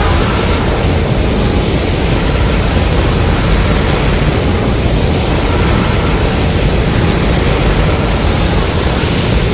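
Monster atomic-breath sound effect: a loud, steady rushing blast of noise with a deep rumble underneath.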